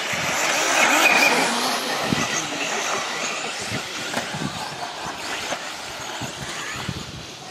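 1/10-scale electric four-wheel-drive RC buggies racing on a dirt track: the whine of their electric motors mixed with the rush of tyres on loose dirt. It swells loudest about a second in, then eases off.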